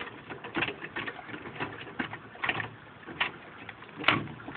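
Four-way cross lug wrench turning lug nuts off a car wheel: irregular metallic clicks and scrapes, a few a second, with a sharper knock about four seconds in.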